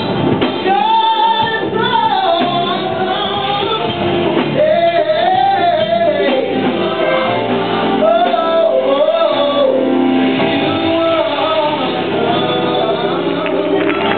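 A youth praise team singing a gospel praise song into microphones, male and female voices together over a steady instrumental backing, heard live in a church.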